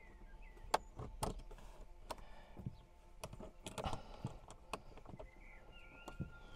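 Irregular clicks and knocks from hands and tools working on a car door as the mounting screws of a newly fitted speaker are being tightened. There are about a dozen separate taps, with one sharper knock a little over a second in.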